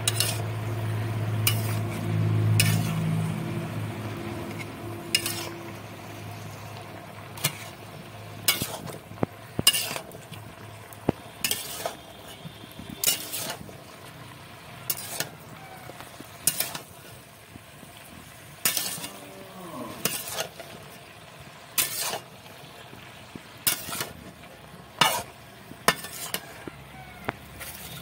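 Flat metal spatula stirring wilted Malabar spinach and chopped vegetables in a metal pan over a faint sizzle, clinking and scraping against the pan roughly once a second. A low hum fades out over the first few seconds.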